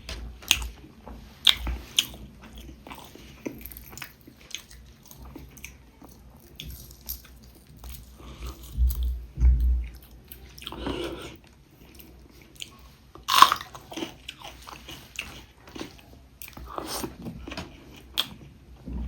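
Close-miked eating of a meal of pork ribs and rice: biting and chewing with scattered crisp crunches and clicks, the sharpest click about two-thirds of the way in.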